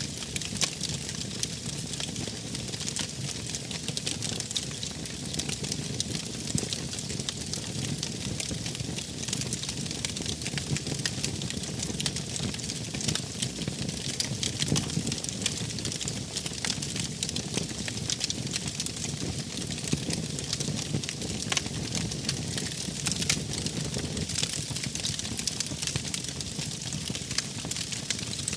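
Wood fire burning, with frequent sharp crackles and pops over a steady low rumble of the flames.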